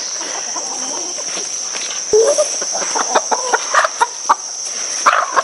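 Chickens clucking in short calls, starting about two seconds in, over a steady high-pitched insect buzz.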